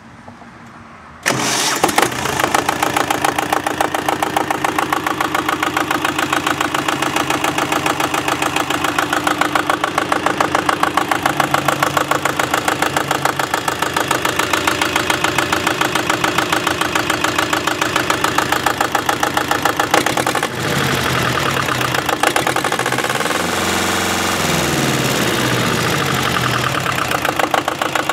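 27-horsepower Lombardini diesel engine on a Bandit stump grinder starting: it catches suddenly about a second in and runs with a rapid, even clatter. About twenty seconds in the sound shifts, and for a few seconds a tone rises and falls over it.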